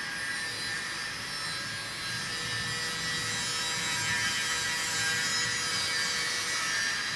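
A workshop machine runs steadily with a hiss and a faint steady hum, then cuts off abruptly at the end.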